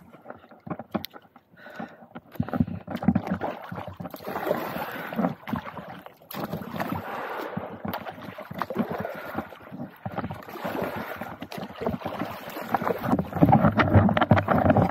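Water splashing and slapping unevenly against a kayak's plastic hull, with scattered knocks and some wind on the microphone; it grows louder near the end.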